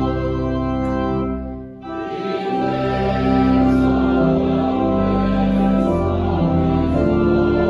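Pipe or electronic church organ playing a hymn in sustained chords, with a congregation singing along. The music drops out briefly about two seconds in, between phrases, then carries on.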